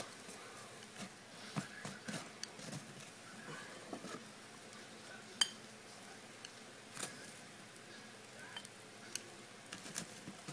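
Faint, scattered small clicks and taps over a low steady hiss, the sharpest about five and a half seconds in.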